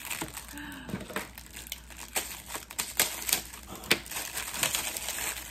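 Plastic packaging crinkling and crackling as it is handled and opened, in irregular bursts of sharp crackles.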